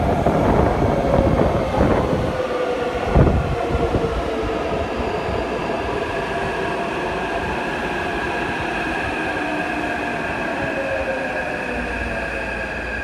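Taipei Metro train pulling into an underground station: heavy wheel rumble as it arrives, a single loud thump about three seconds in, then the traction motors' whine falling in pitch as it brakes along the platform, with steady high tones over it.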